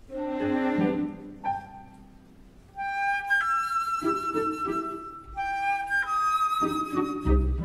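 Background music score: a light melody on woodwind over strings, played in short phrases with a brief lull about two seconds in.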